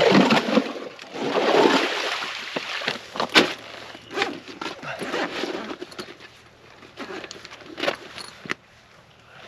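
Handling of ice-fishing gear on the ice: two swells of scraping and crunching in the first two seconds, then scattered sharp clicks and knocks as a bucket and tackle are worked with, the loudest knock about three and a half seconds in.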